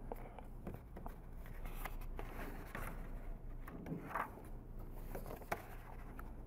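Faint rustling of paper and small clicks as pages of a printed handout are turned, with one sharper click about five and a half seconds in.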